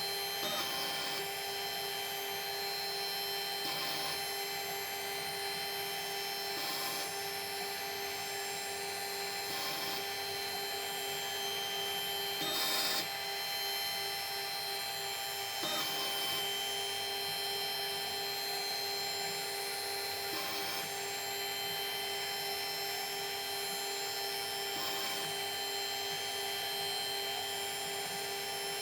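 A metalworking machine tool's motor running steadily with a constant whine, with a short, harsher burst about every three seconds.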